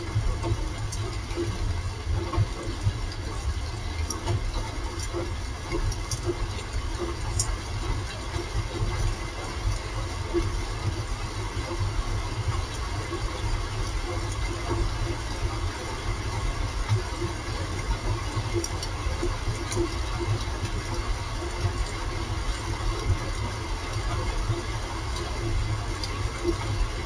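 Steady rain, a constant even hiss with a low rumble underneath and a few faint sharp ticks.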